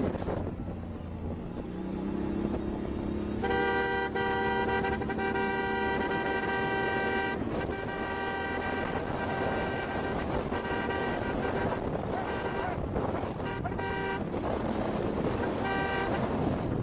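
Vehicle horn blowing one long blast of about four seconds, then a few short toots later on. Under it runs a steady engine rumble with wind noise on the microphone, as if from a vehicle moving fast over rough ground.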